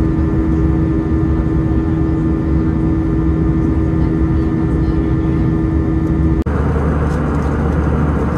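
Airbus A320 cabin noise at the window seat over the wing: steady jet engine and airflow noise with a strong, steady hum. About six seconds in it cuts off abruptly and resumes as a more even rushing sound without the hum.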